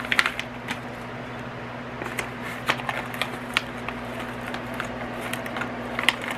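Small diamond painting tools and their packaging being handled and unpacked from a toolkit: scattered light clicks, taps and crinkles, over a steady low hum.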